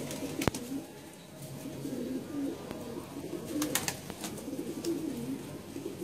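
A flock of red domestic pigeons cooing, many low coos overlapping without pause. A sharp click sounds about half a second in, and a few lighter ticks come a little past the middle.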